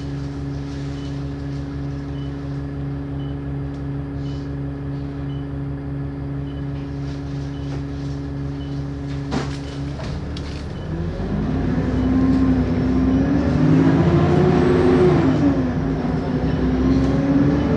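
Bus diesel engine idling steadily, then a sharp click and the engine revving up as the bus pulls away, about ten seconds in. A thin turbo whine rises high under acceleration and then falls back.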